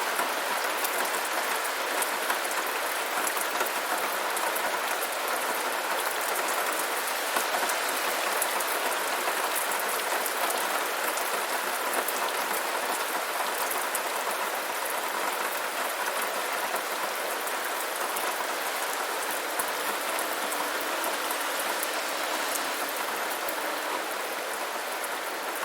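Steady rainfall: a dense hiss of rain on a surface with many fine drop ticks, easing slightly in level over the last few seconds.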